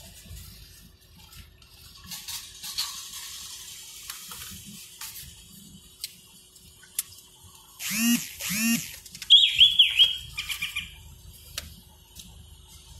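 Two short squeaky calls about eight seconds in, followed by a quick run of high, falling chirps, over a faint low cabin rumble with scattered small clicks.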